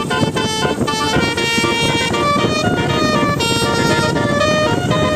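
Bus telolet basuri horn playing a tune: a run of held notes stepping up and down in pitch, over a low rumble.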